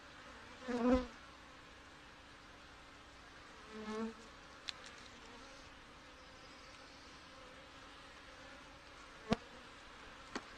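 Honeybees humming steadily around an open, crowded hive, with two louder, short buzzes about a second in and about four seconds in. Two sharp clicks come near the end.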